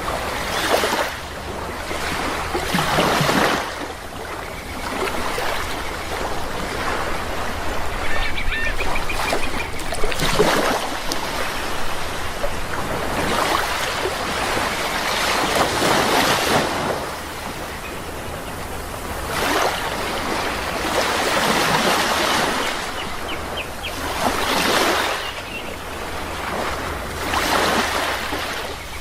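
Sea waves surging and washing in, swelling and ebbing every few seconds. A couple of brief bird calls sound over the surf.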